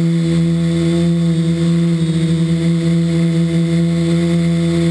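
A quadcopter's electric motors and propellers whirring, heard close up from the camera on board: a loud, steady hum whose pitch wavers slightly as the throttle changes.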